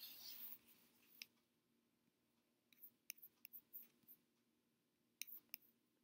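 Near silence with a few faint clicks of a computer being worked: one about a second in, a cluster of five or six around three to four seconds in, and two more near the end.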